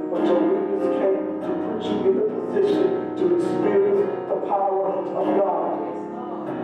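Worship band music with guitar and keyboard, held chords under sharp hits that mark a beat about every two-thirds of a second.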